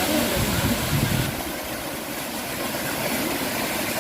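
Steady rushing of falling water, with a low rumble in the first second or so.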